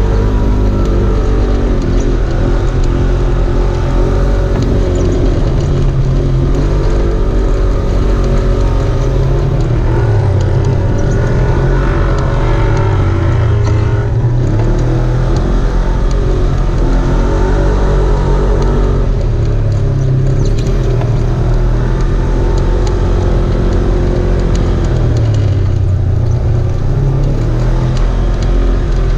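Off-road vehicle engine running steadily, its pitch rising and falling repeatedly as it revs up and eases off.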